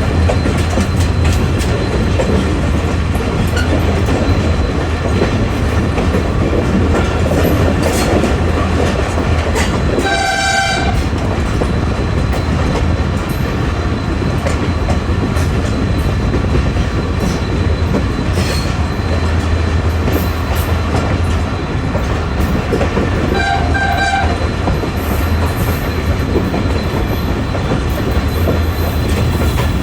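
Train running on the rails, a steady low rumble with wheel clatter. The locomotive horn sounds twice, each blast about a second long: once about a third of the way through and again about two-thirds in.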